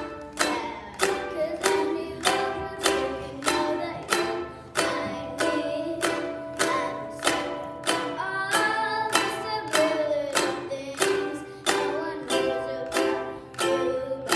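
Ukulele strummed in a steady rhythm, about two strokes a second, ringing chords between the strokes.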